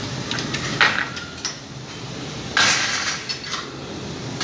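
Arc welding: the welding arc crackles and hisses in short bursts as the rod is struck, a brief one about a second in, a longer one of nearly a second past the middle, and another starting near the end.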